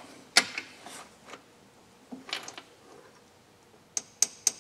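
Scattered sharp metallic clicks and ticks as a reamer in a lathe tailstock is worked by hand into a steel plate held in the chuck. The loudest are three quick ringing clicks near the end.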